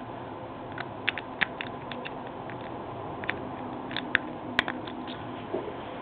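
A metal lock pick working the pins of a Medeco high-security cylinder lock, making a series of light, irregular clicks, with one sharper click about four and a half seconds in.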